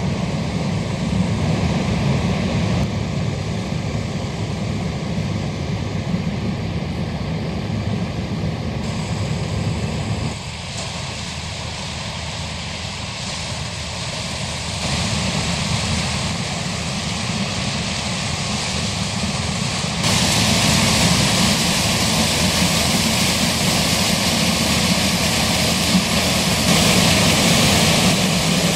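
Combine harvester working through corn, its engine and threshing machinery running steadily. The sound drops somewhat about ten seconds in, then grows louder and brighter about twenty seconds in as the machine comes closer.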